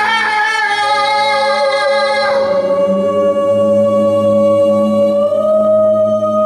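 Improvised wordless singing by a man and a woman into microphones: long held notes over a steady low drone, the main note stepping up slightly about five seconds in.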